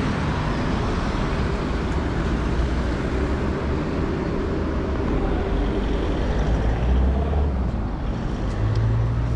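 City street traffic: a car passing close by and other engines running, a steady rush of road noise, with a deeper engine hum coming in near the end.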